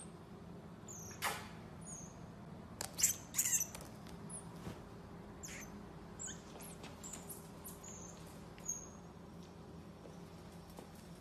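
Common marmoset giving short, very high-pitched chirps, many sliding downward, scattered throughout. A few short scuffing noises come about a second in and again around three seconds in.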